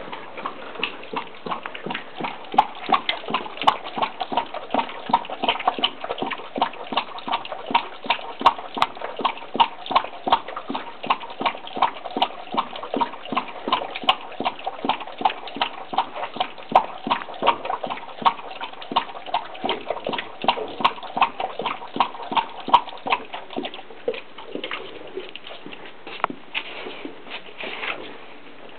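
Perro de Presa Canario lapping water from a plastic bowl: a long, fast, even run of laps that slows and stops a few seconds before the end.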